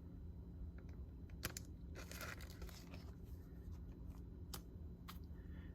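Faint rustling and crinkling of a plastic card sleeve as a baseball card is slid into it, with a few light clicks.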